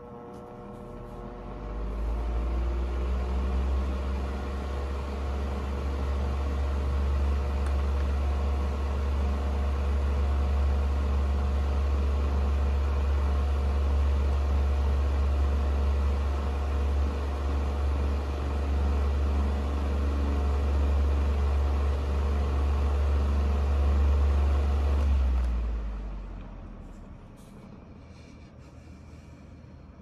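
Vintage Artic Breeze OF12 12-inch table fan switched on and spinning up with a short rising whine. It then runs steadily with a strong motor hum and a rush of air from the blades. About 25 seconds in it is switched off and winds down.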